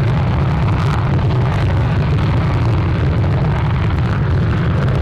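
F-35 fighter's single F135 jet engine running at high power on the runway ahead of an afterburner takeoff: a steady, loud, deep rumble.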